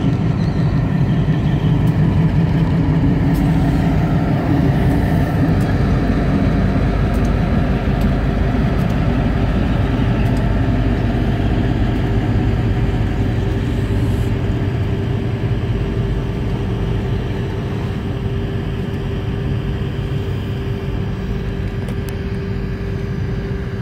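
Diesel switcher locomotive's engine running steadily as it rolls along the track, slowly fading as it moves away.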